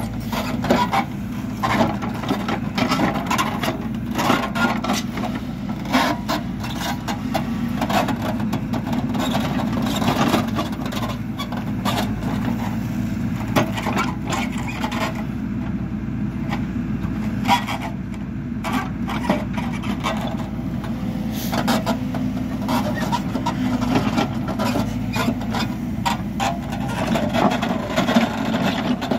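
Hidromek backhoe loader at work: its diesel engine runs steadily, with frequent scrapes and knocks throughout as it moves fill.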